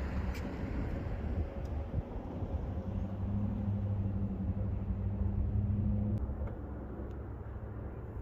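Low outdoor rumble with wind buffeting the microphone, and a steady low engine-like hum from about three to six seconds in.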